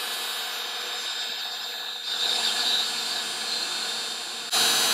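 Ryobi cordless heat gun blowing steadily, a fan rush with a faint whine, as it shrinks heat-shrink tubing over a soldered wire joint; it gets louder near the end.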